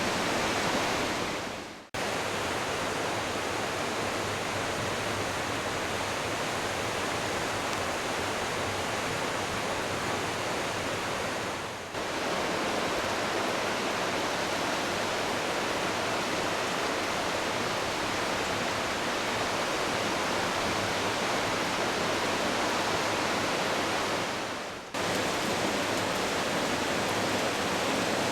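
Steady rushing noise of the Smith River in flood, a big volume of fast high water. The noise drops out briefly three times and comes straight back at the same level.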